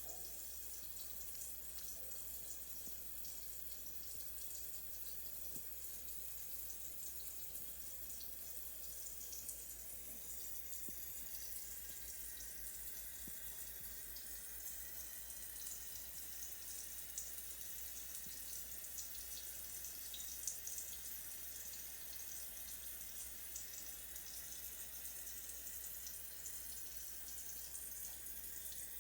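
Shower running: a steady, even hiss of water spray, with a couple of small ticks around the middle.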